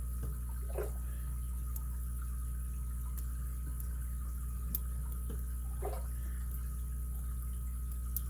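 A steady low hum, with a few faint, scattered ticks and light scrapes from a lock pick and tension wrench working the pins of an ABUS 83CS 55 padlock. The sharpest tick comes a bit under five seconds in, and another comes near the end.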